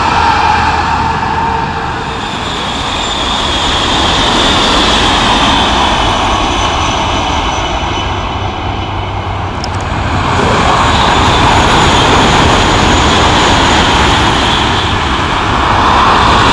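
TGV Duplex double-deck high-speed trains passing at speed, a steady rushing noise that dips briefly about two seconds in and again around nine seconds in, then swells again.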